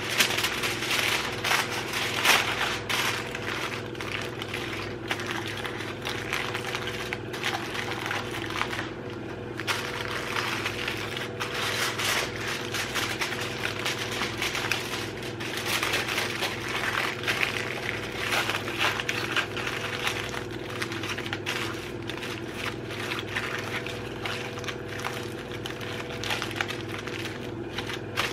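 Aluminum foil crinkling and rustling in irregular bursts as it is folded and pressed down around a pie pan, over a steady low hum.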